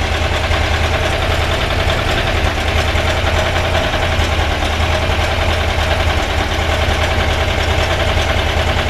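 2-litre air-cooled VW flat-four engine running steadily at just over 2000 RPM, its ignition advance being checked with a timing light.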